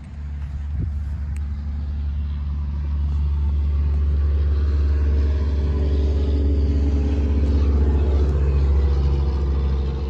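Case 850L crawler dozer's diesel engine running steadily, a deep low hum that grows louder over the first few seconds and then holds.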